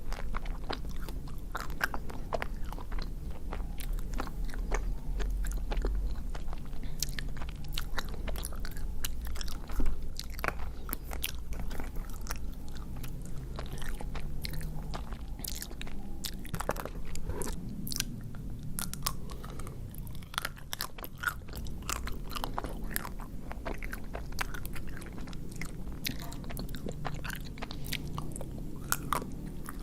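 Close-up eating sounds: biting, crunching and chewing through the chocolate shell of an ice cream bar, with wet mouth sounds and many sharp crackles, one louder snap about ten seconds in.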